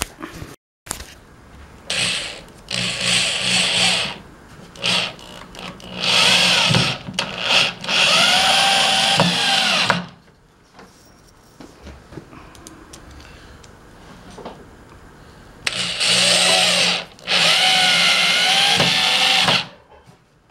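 Power drill driving screws into pallet wood: three long runs with shorter bursts between, the motor's pitch rising and falling as each screw goes in.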